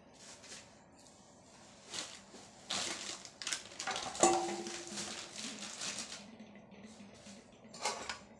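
A spoon scraping and clattering inside an aluminium pot as food is stirred, with one sharp metal clink about four seconds in that rings briefly. Another clatter near the end as the pot is handled.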